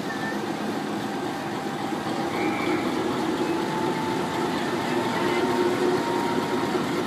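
CFCLA GL-class diesel-electric locomotive's engine running with a steady drone and a faint whine, getting a little louder from about two seconds in.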